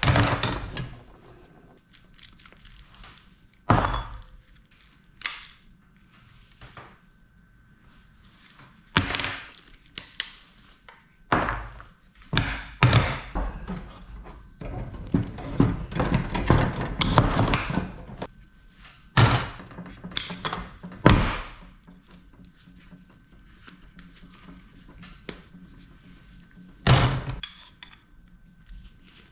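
Scattered knocks and thunks of scrap metal parts from a dismantled air conditioner being handled and dropped, with a busier run of clattering in the middle and one sharp knock near the end.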